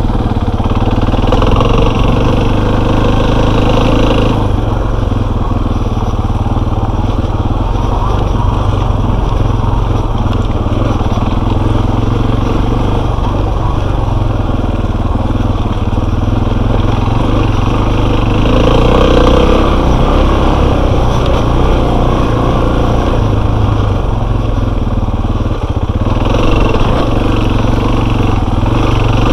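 Enduro motorcycle's engine running loud and steady as it is ridden.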